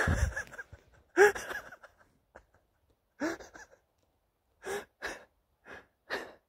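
A man's heavy, gasping breaths, about seven in a row with short gaps between, a few with a brief catch of voice: he is out of breath from excitement and the high elevation.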